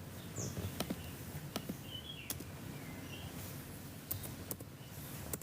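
Scattered light clicks and taps, about a dozen at uneven intervals, over a faint low background hum.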